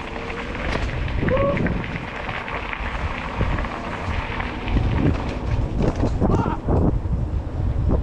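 Mountain bike rolling over a rough dirt trail: low rumble from the tyres and wind on the microphone, with rattling from the bike over bumps. There is a short squeak about a second in.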